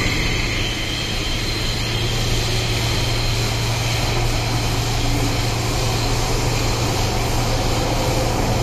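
Steady running noise inside an MTR Tseung Kwan O Line M-Train car moving through a tunnel: a low rumble of wheels on rail and motors under a constant hiss. A faint high whine fades out after about two seconds.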